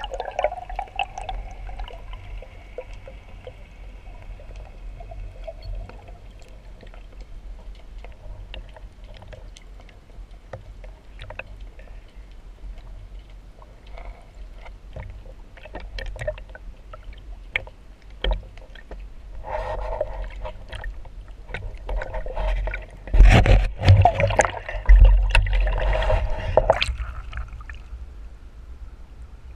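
Water heard through an underwater camera housing: a steady low rumble with scattered small clicks and bubbles, then louder splashing and sloshing in the last third as the diver comes up to the surface, loudest a few seconds before the end.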